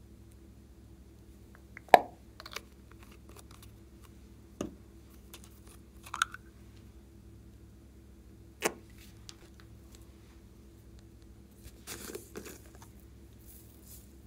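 Slime being squeezed and mixed by hand, giving a few scattered sharp pops and crackles, the loudest about two seconds in, with a short cluster around twelve seconds.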